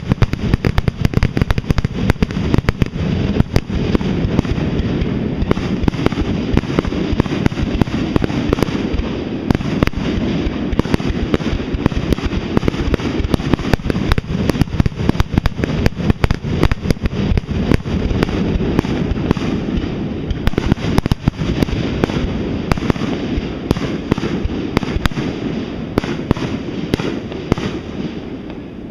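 Fireworks display grand finale: a dense barrage of aerial shell bursts, many sharp bangs overlapping with no gaps, thinning out over the last couple of seconds.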